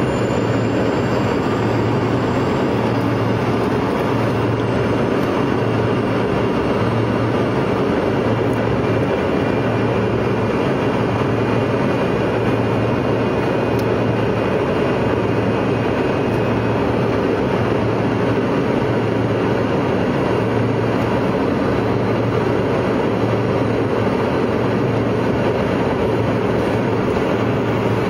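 Steady airliner cabin noise: jet engine and airflow rumble, with a slow, regular throb in the low range about every second and a half.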